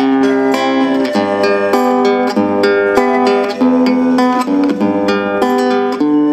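Acoustic guitar music: a quick run of plucked notes over held chords.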